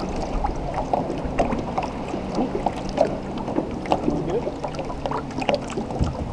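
Small boat motor running steadily at trolling speed, its hum dipping slightly in pitch about four seconds in, with frequent small slaps of water against the aluminum hull.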